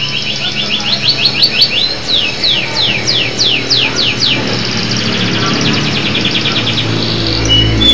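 Canary singing a long continuous song: fast trills, then a run of rising notes, then a run of falling sweeps, then fast trills again, with a short pure whistle near the end.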